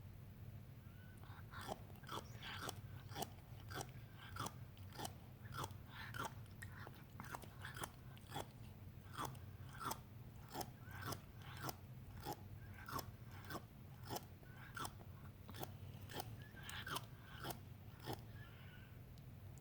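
An older cat grinding its teeth after eating: a long run of sharp, grating clicks, about two a second, over a low steady hum.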